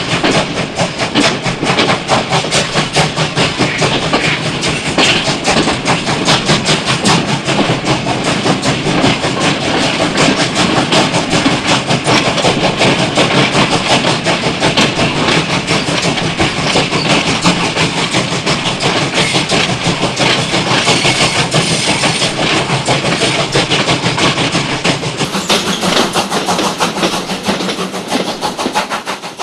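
Sound effect of a moving train: a steady, fast rhythmic clatter of a running train, fading out near the end.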